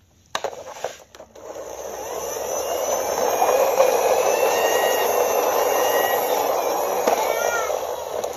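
A few clattering knocks of hard plastic, then a steady engine-like whirring that builds over about two seconds and holds, as an orange plastic toy ladder fire truck is put down and pushed along concrete.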